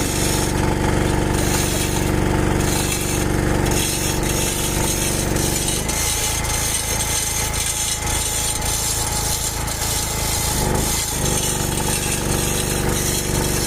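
An engine running steadily under a continuous rasping, crackling power-tool noise; the engine's low drone drops back for a few seconds in the middle.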